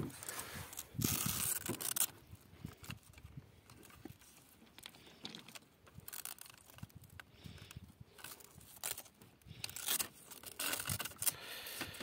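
Hands handling the plastic splice trays and cables of an opened fiber-optic splice enclosure: irregular clicks, rattles and rustling, busiest about a second in and again near the end.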